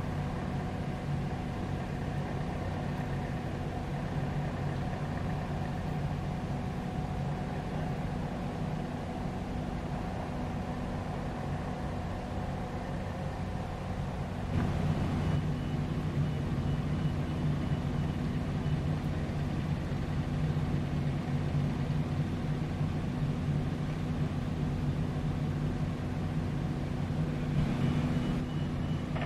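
Steady low drone of idling engines with a constant hum. It gets a little louder about halfway through, and a faint high whine comes and goes.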